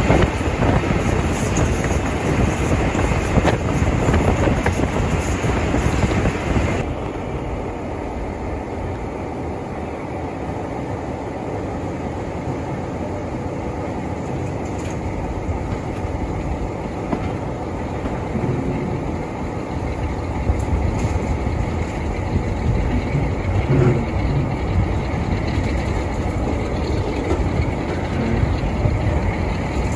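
Diesel-hauled train running with a steady rumble. About seven seconds in, the higher hiss drops away abruptly, leaving a lower, duller rumble with occasional knocks.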